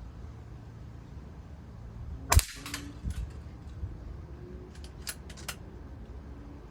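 A .22 Umarex NOTOS PCP air rifle firing a single pellet about two and a half seconds in: one sharp crack, followed shortly by a few weaker knocks, and then several short high clicks about two seconds later.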